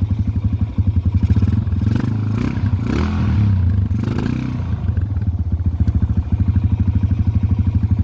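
1990 Yamaha XT 350's single-cylinder four-stroke engine idling with an even beat just after being kick-started, revving up and back down for a few seconds in the middle.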